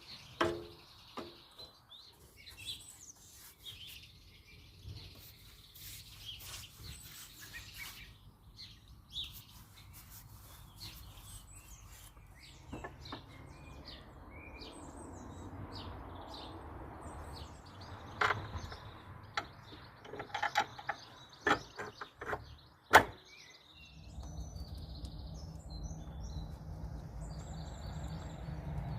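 Birds chirping, with scattered clicks and knocks of tools and parts being handled, one sharp knock about three-quarters of the way in. After that a steady low hum sets in.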